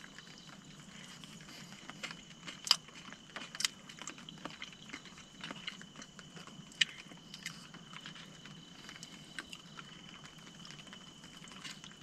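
A person eating noodles with a fork from a plastic bowl: soft chewing and mouth sounds with scattered small clicks of the fork against the bowl. The loudest clicks come a little under three seconds in and near seven seconds. A faint steady high-pitched tone runs underneath.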